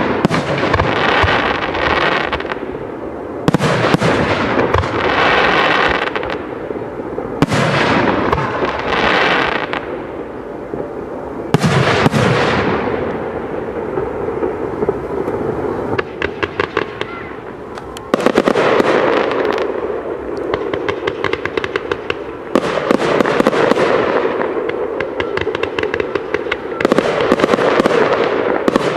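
Fireworks display: aerial shells bursting with a bang every three to four seconds, each trailing off in hiss and crackle. Rapid strings of sharp crackling reports come about sixteen seconds in and again near the end.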